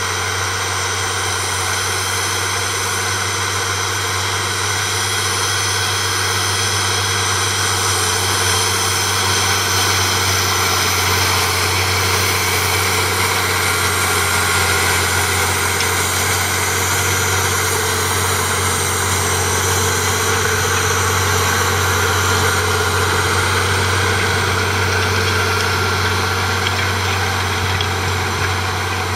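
Valtra T151 tractor's 6.6-litre six-cylinder diesel engine running at a steady speed.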